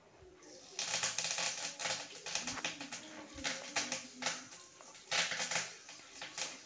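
Fresh curry leaves crackling and spattering in hot oil, starting about half a second in, with rapid sharp pops over a sizzling hiss.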